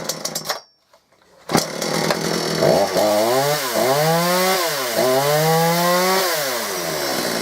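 Gardenline GLPC 41 two-stroke chainsaw starting about a second and a half in, then revved up twice and let fall back to a low idle. It fires and runs cleanly on its cleaned carburettor and new NGK plug cap.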